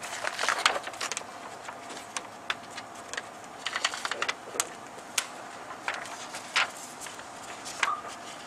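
Scattered, irregular light clicks and crackles of clear protective film being handled and pressed onto a plastic truck grille, over a faint steady hum.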